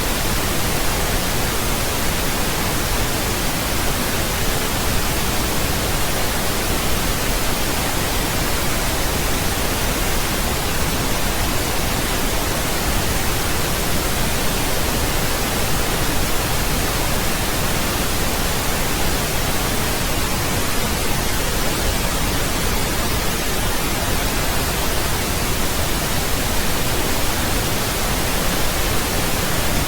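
Steady pink noise: an even, unbroken hiss spread across all pitches, with no change.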